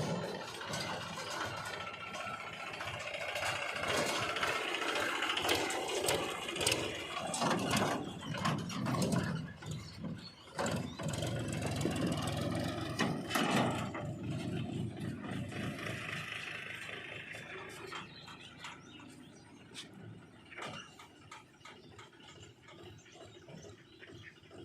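JCB 3DX backhoe loader's diesel engine working, its level rising and falling under load, with scattered clicks and knocks; it grows quieter over the last several seconds.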